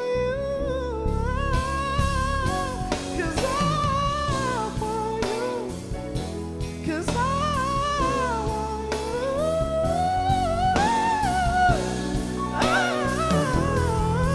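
Live band with electric guitar and drum kit playing a slow song under a man's voice. He sings long, drawn-out notes that slide up and down in pitch.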